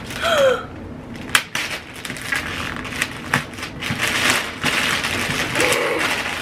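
Wrapping paper being torn off a gift box: steady crinkling rustle broken by a few sharp rips.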